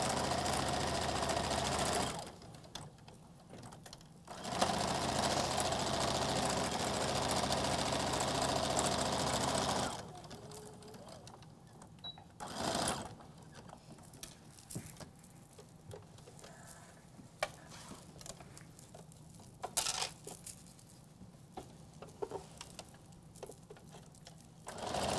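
Domestic electric sewing machine stitching fabric in stop-start runs: about two seconds, then a longer run of about five seconds, a short burst about halfway through, and starting again right at the end. Between runs it is quiet apart from a few light clicks.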